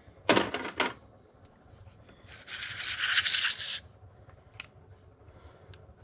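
Small hard tools and parts handled at a workbench: a quick clatter of three or four sharp clicks about half a second in, then a scraping rustle lasting about a second and a half, and a couple of faint ticks near the end.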